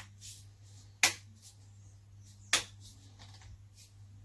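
Plastic coil cover being pressed and snapped onto a Garrett ACE 400i search coil: two sharp clicks about a second and a half apart, then a few fainter ones, as the cover's rim seats on the coil.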